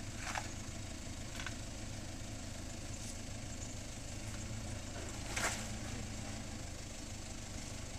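Toyota four-wheel drive's engine running steadily at low revs as it crawls down a rock slope, a low hum. A brief sharp noise stands out about five and a half seconds in.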